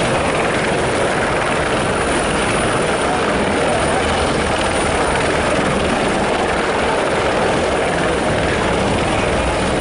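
Several Eurocopter EC120 Colibri helicopters hovering low together, a steady mix of rotor and turbine noise.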